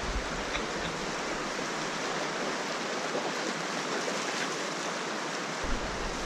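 Steady outdoor rushing noise, an even hiss with no shots or calls in it.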